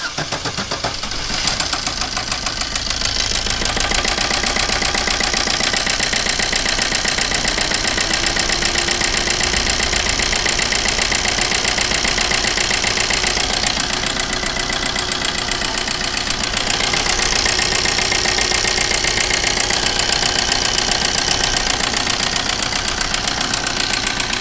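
Maruti Suzuki Ritz engine starting and then idling with a fast, even knocking. The mechanic puts the knock down not to the injectors or wiring but to a fault inside the engine, in the pistons or cam.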